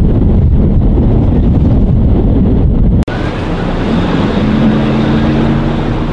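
Strong wind buffeting the microphone on an open boat, over the boat's engine and water noise. About three seconds in, the sound cuts off abruptly and resumes as wind and water wash, with a steady low hum joining for about a second and a half.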